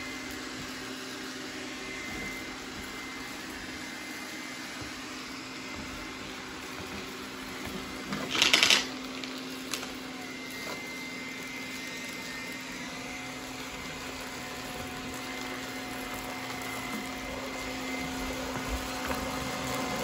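Roborock S4 Max robot vacuum running on max power across a hard floor strewn with dry debris: a steady motor and suction hum with a fan tone. About eight seconds in, a brief, much louder burst of noise stands out.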